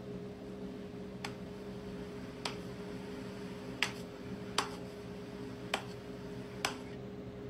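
Six sharp clicks, roughly a second apart, over a steady low hum.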